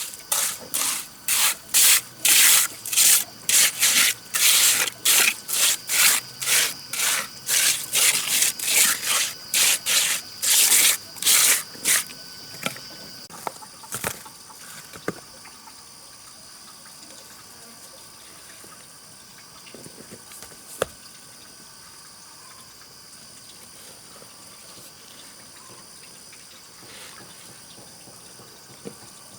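Rhythmic rasping strokes from hand work, about two a second, which stop about twelve seconds in; after that a faint steady high-pitched hum with a few scattered clicks.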